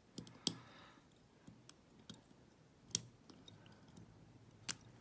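Sparse small metallic clicks and taps of a tension tool and pick wire working the levers inside a vintage Chubb lever padlock, with louder clicks about half a second in, around three seconds and near the end.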